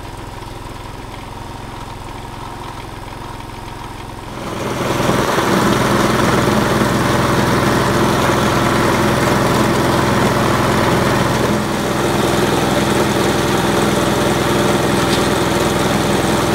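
Motorised bean-grinding mill running steadily, then much louder from about four seconds in as it grinds soaked beans into wet paste: a steady engine drone under a dense grinding noise.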